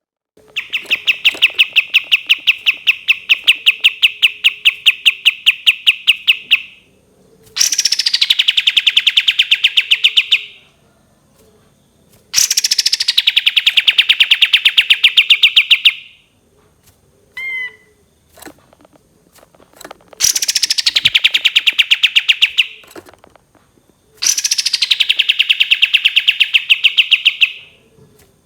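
Kapas tembak bulbul singing its long rapid 'tembakan' bursts: five runs of very fast repeated sharp notes, each lasting about three to six seconds, several opening with a falling sweep, with a short call in one of the gaps.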